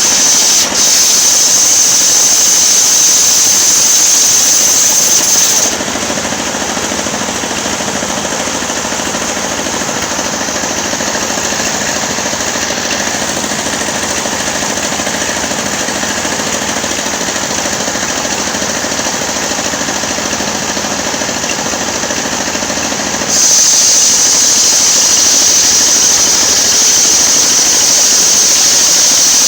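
Engine-driven circular sawmill running continuously while ripping a coconut log, with a loud mechanical noise throughout. A high whine on top drops away about six seconds in, leaving the sound a little quieter, and returns about twenty-three seconds in.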